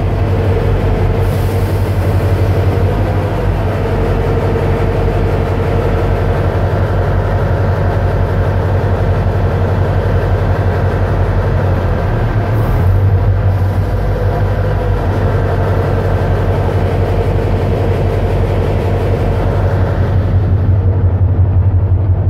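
Tugboat's diesel engine running steadily under way, a loud low drone with a constant hum, heard from on board the boat.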